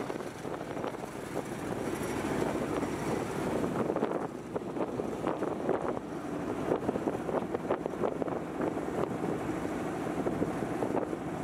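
Small wooden boat running on calm sea: a steady engine rumble under a rushing, fluttering noise of wind buffeting the microphone.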